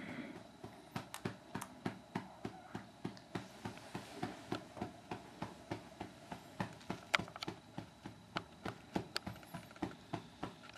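A hand patting a baby's back in a steady rhythm, about three pats a second, to bring up a burp.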